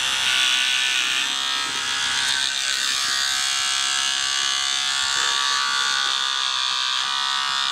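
Electric hair clippers buzzing steadily as they shave through a cat's fur.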